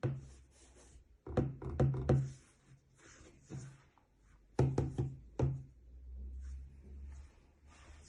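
Hands handling a phone and its packaging, with a series of sharp knocks and taps on a hard surface: a quick run of five or six about a second in and three more near the middle.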